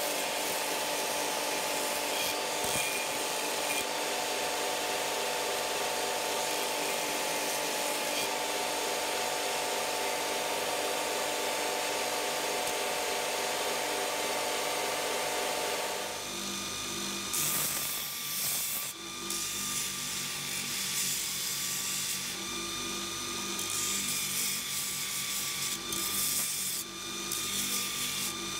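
Belt grinder running while a steel horseshoe is ground against its abrasive belt, a steady machine whine with a continuous grinding hiss. About halfway through the sound changes to a steady high whine broken by several short, harsher passes of steel against the belt.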